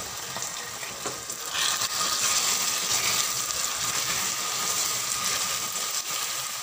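Cold water hitting hot sugar syrup in a non-stick pan, sizzling and hissing as it boils off in steam while a wooden spoon stirs it. The sizzle swells about a second and a half in.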